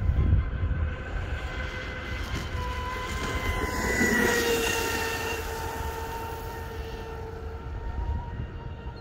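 Aeromarine Titan 40 RC speedboat running at speed, its motor giving a steady whine that swells and drops a little in pitch as the boat passes close about four seconds in, then fades as it runs away. Wind rumbles on the microphone.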